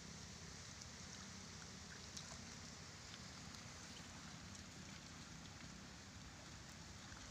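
Near silence: a faint, steady outdoor background hiss with a low hum underneath and no distinct event.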